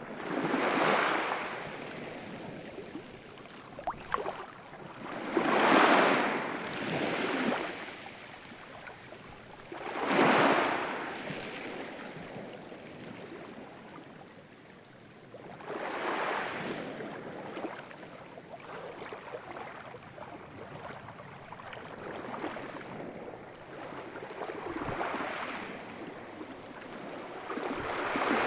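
Sea waves breaking and washing in, a surge swelling up every few seconds and falling back to a steady hiss of surf. A few short clicks about four seconds in.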